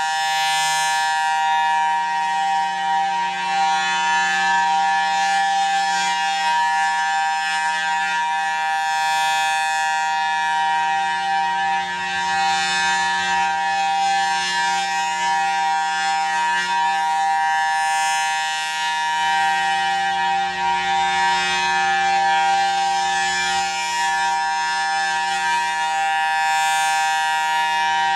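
Federal Signal Thunderbolt 1000T outdoor warning siren sounding its steady alert tone, loud and unbroken. The rotating horn makes the upper part of the sound swell and fade as it sweeps past and turns away.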